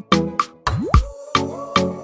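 Music with a punchy, steady beat: sharp percussive hits over pitched bass and chord notes, with a quick rising swoop about two-thirds of a second in.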